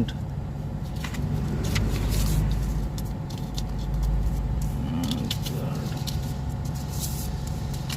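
Steady low hum with scattered light clicks and rustles of handling noise.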